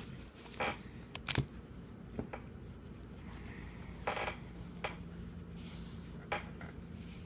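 A cloth rag rubbing over a .22 eight-shot revolver as it is wiped down and turned in the hands, with a few light clicks and taps of the metal gun being handled and a longer scratchy rub about four seconds in.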